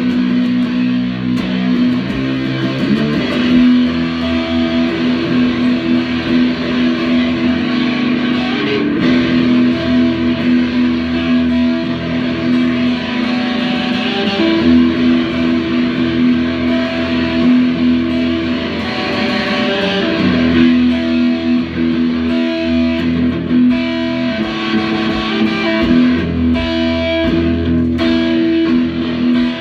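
Electric guitar played in a rock style, with long held notes and chords that change every few seconds over a steady low part.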